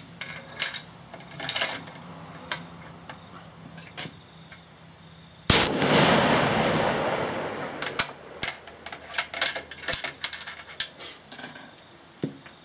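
A single rifle shot, about five and a half seconds in, from a Remington 700 in 7mm-375 Ruger fitted with a Terminator T2 muzzle brake; the blast fades out over about two seconds. Light clicks and knocks come before and after the shot.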